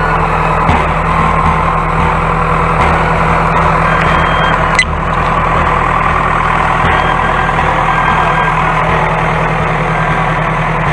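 A motor vehicle's engine running steadily, with a single sharp click about five seconds in.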